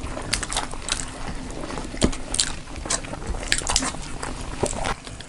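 Close-miked eating sounds: chewing, with irregular mouth clicks and smacks.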